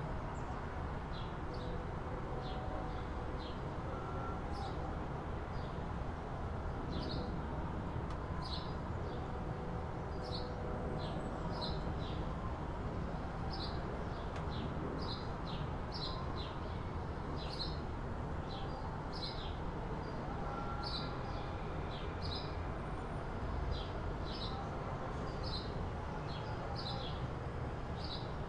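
Small birds chirping in short, high calls, one or two a second, over a steady low hum of city traffic.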